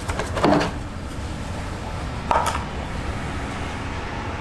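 Plastic air filter cover of a Honda EU3000IS generator being handled and set down: a clatter about half a second in and a sharper knock about two and a half seconds in, over a steady low rumble.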